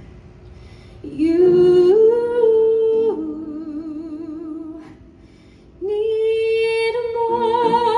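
A woman singing long, held notes with vibrato, unaccompanied at first, as in a cabaret show tune. Instrumental chords come in under her voice near the end.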